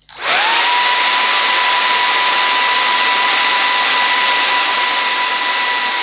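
Partly dismantled BaByliss 3Q hair dryer running with its casing off: the fan motor spins up in a fraction of a second to a steady high whine over a loud rush of air. Near the end it is switched off and the whine begins to fall as the motor winds down.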